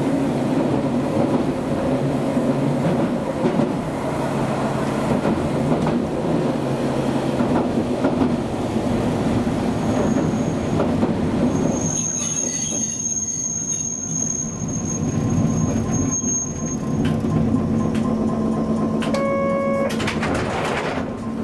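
Hankai Tramway streetcar running, heard from inside the car: steady wheel and motor rumble with clicks over rail joints, then a high, steady wheel squeal on a curve for about five seconds a little past the middle. A brief chime sounds near the end.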